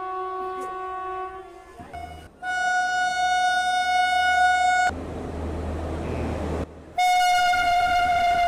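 Indian Railways electric locomotive horn sounding in long steady blasts as express trains pass at speed: one blast fades out in the first two seconds, a louder one runs from about two and a half seconds to five and cuts off sharply, then rushing train noise, then another loud blast starts about seven seconds in.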